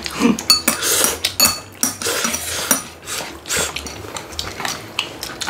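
Eating utensils clicking and scraping against bowls and plastic food containers: a run of short clicks, several with a brief high ring.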